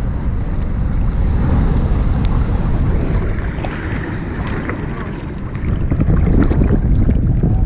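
Wind buffeting a GoPro's microphone out on the ocean, over sloshing water and the hiss of surf; the hiss grows louder about two thirds of the way in.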